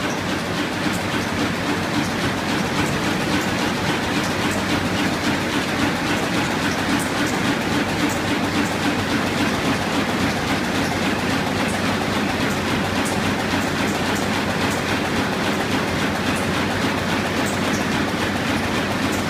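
Web offset press line and its web stacker running: a steady mechanical clatter over a low hum, with no change in pace.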